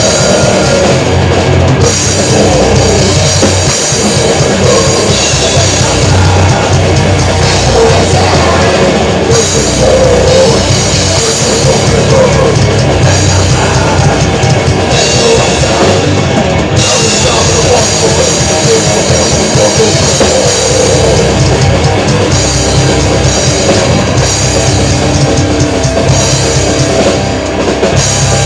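Metal band playing live at rehearsal: heavily distorted guitars and bass over fast, dense drumming on a full kit, in the grindcore/death metal style, loud and unbroken.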